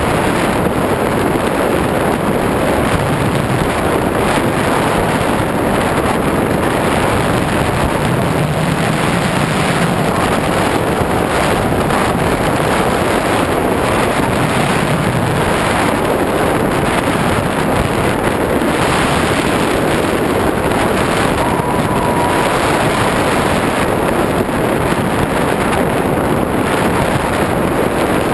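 Steady rush of air over the onboard microphone of a Skywalker FPV plane in flight, mixed with the drone of its propeller.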